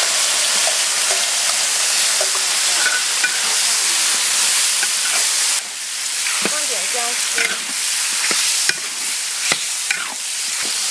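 Marinated chicken pieces sizzling in hot oil in a cast-iron wok while a metal spatula stir-fries them, with frequent scrapes and clacks of the spatula against the wok, most of them in the second half.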